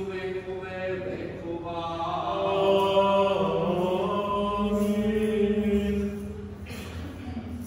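Liturgical chanting of the Serbian Orthodox wedding service, long held notes moving slowly in pitch, fading out about six seconds in.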